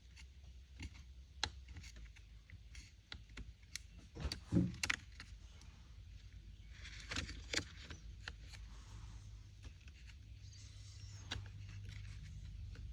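Chainsaw top-handle parts being handled and fitted by hand: scattered light clicks and taps of plastic and small metal pieces, with a cluster of louder knocks about four and a half seconds in and again around seven seconds.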